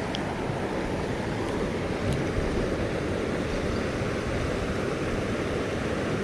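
Loud, steady rush of water pouring over a creek spillway: an even, deep rushing noise that holds level throughout.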